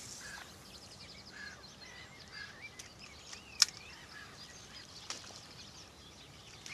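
Quiet open-air ambience with birds chirping faintly now and then, and one sharp click a little past halfway through.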